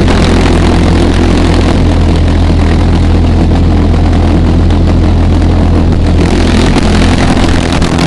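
Pulse jet engine running on its own just after being lit, a loud, steady low drone with a stack of tones.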